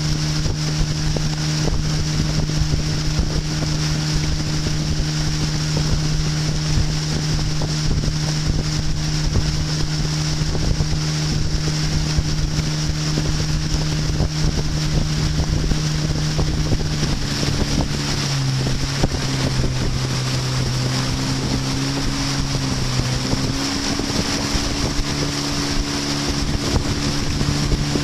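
A small boat's motor running steadily, with wind buffeting the microphone. About two-thirds through, the engine note drops lower for several seconds as the boat slows, then picks back up.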